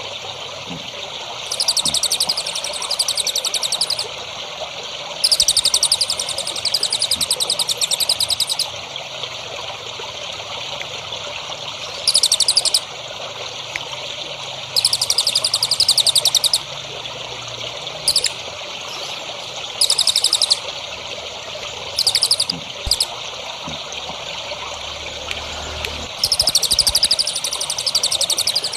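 A small songbird singing fast, high, buzzy trills in repeated bouts, some under a second and others up to about three seconds long, with short pauses between. A steady trickle of running water runs underneath.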